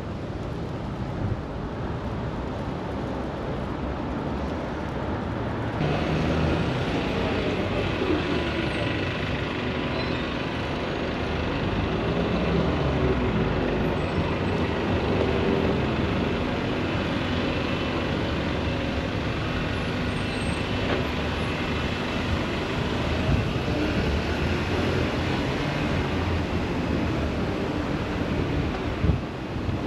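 Road traffic on a busy city street: cars and buses running and passing, with engine hum and tyre noise. It grows louder about six seconds in, and engine tones rise and fall in pitch as vehicles pass.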